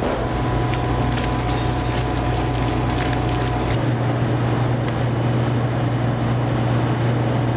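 Steady mechanical hum of room machinery, part of which drops out a little under four seconds in. Over it come light clicks and scrapes of chopped grilled vegetables tossed in a stainless steel bowl and pushed out with a spatula.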